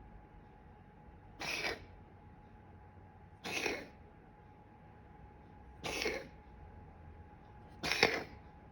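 A cat coughing four times, each cough short, spaced about two seconds apart; the last is the loudest.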